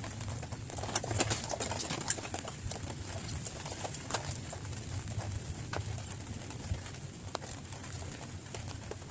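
Rain drops tapping irregularly on a hard surface, sharp scattered ticks over a steady low rumble.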